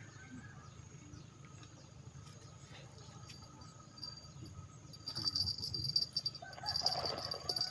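Insects, crickets or similar, trilling high and steadily, growing loud from about five seconds in over a faint low background hum.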